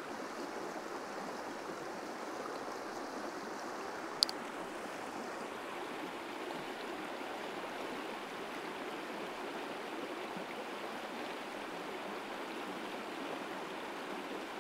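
Shallow river running high and fast over small rapids: a steady rush of water, with one sharp click about four seconds in.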